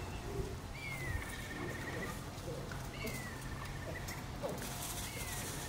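An animal call repeated about every two seconds, three times: a short falling note that runs into a held trill about a second long.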